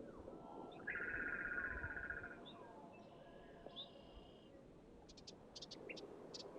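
Ruby-crowned kinglet vocalizations, slowed down: a long, even trill about a second in, a shorter and higher trilled phrase near the middle, then a series of short, sharp ticks toward the end.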